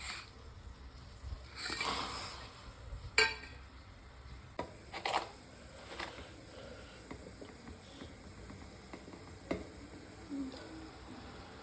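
Kitchen utensils clinking and knocking against a cooking pot as ingredients are handled: a short scraping swish about two seconds in, a sharp clink about a second later, then a few scattered lighter clicks.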